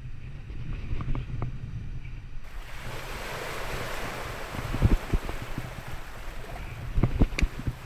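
Ocean surf washing ashore, with wind buffeting the microphone. A wave rush swells in about two and a half seconds in, and a few short thumps come near the middle and near the end.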